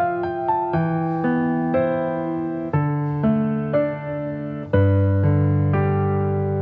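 Background music: slow piano with a new note or chord about every half second, and a louder, deeper chord about five seconds in.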